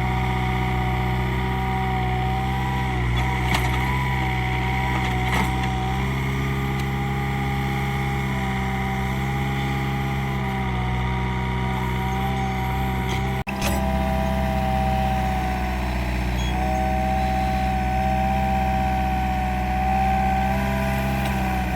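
Mini excavator's diesel engine running steadily, with a high whine over it that wavers in pitch and a few faint knocks. The sound drops out for an instant about halfway through.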